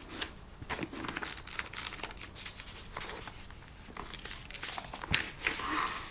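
Pages of an old hardback book being flipped and riffled by hand: a run of irregular papery rustles and flicks, the loudest about five seconds in.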